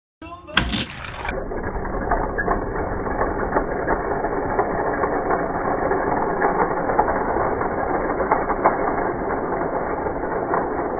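Die-cast toy cars running down a plastic drag-strip track: a sharp knock about half a second in, then a steady rattling clatter of small wheels on the track.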